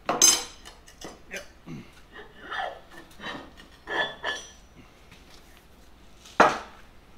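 A rawhide mallet knocks a steel plug out of the bore of a cast bronze capstan with a single ringing strike, followed by lighter clinks and knocks as the parts are handled on a steel table. Another sharp knock comes near the end.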